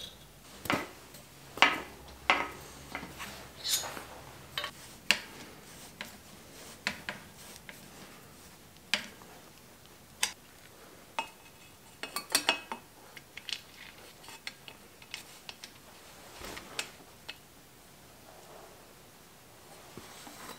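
Irregular sharp metallic clicks and clinks of hand tools, a wrench and hex keys, working on bicycle parts (rear hub, brake caliper, front derailleur). The loudest clusters come about two seconds in and about twelve seconds in.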